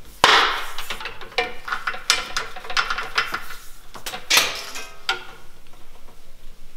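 Handling noises as a rubber hydraulic hose for a Power-Pole anchor is pulled through the boat's rigging: irregular scrapes, rustles and knocks. There is a sharp scrape or knock about a quarter second in, and another about four seconds in.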